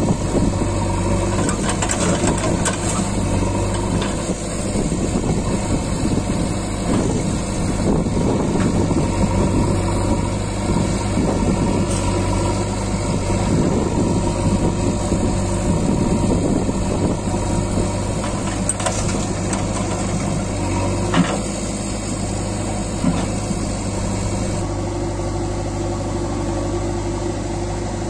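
Diesel engines running steadily at idle: a Swaraj 744 XM tractor standing with its trolley, with a JCB backhoe loader working beside it. A single sharp click about three quarters of the way through.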